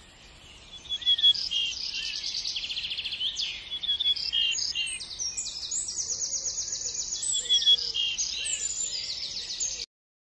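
Songbirds chirping and singing, several overlapping calls with rapid trills, that cut off suddenly near the end.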